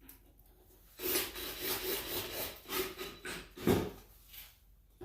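A run of rubbing, scraping strokes from about a second in, the loudest one near the end, as the tail light assembly's screws are put back in by hand.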